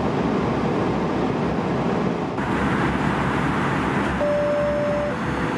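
Airbus A320 cabin noise in flight: the steady rush of airflow and engines. Its hiss gets brighter suddenly about two seconds in, and a single steady beep sounds for about a second near the end.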